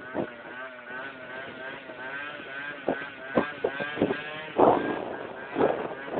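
Small motorcycle or scooter engine running at a steady, slightly wavering speed while being ridden, heard from on board, with several short louder gusts of wind on the microphone, more of them in the second half.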